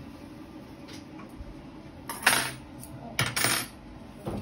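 Dishes and cutlery clinking at a meal: three short clatters about a second apart in the second half.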